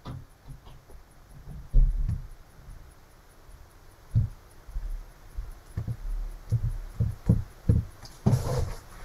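Irregular dull thumps and taps, a dozen or so, from keys being pressed on a desk as a calculation is keyed in, with a brief louder rustle near the end.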